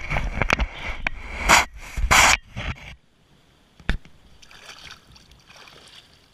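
Shallow water sloshing and splashing around a trapper's waders as he wades, loudest in a run of bursts over the first three seconds, then softer, with a sharp click about four seconds in.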